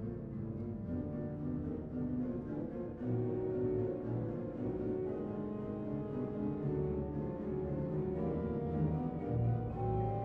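Instrumental background music, with its weight in the low register.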